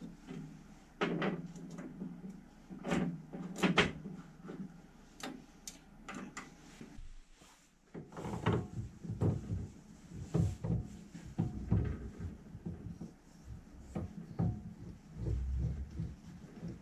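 Irregular knocks, clunks and clatter of hard objects being handled. A low steady hum runs under the first part and stops about seven seconds in, after which the knocks come thicker and heavier.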